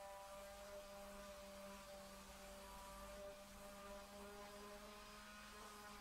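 Faint, steady buzzing hum of an electric palm sander running on a plywood board with 80-grit sandpaper.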